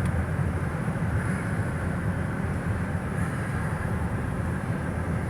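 Steady low road and engine rumble heard from inside a car's cabin while it drives along a highway.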